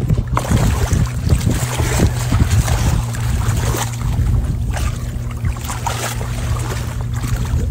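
Wind buffeting the phone's microphone in uneven gusts, over a steady low hum.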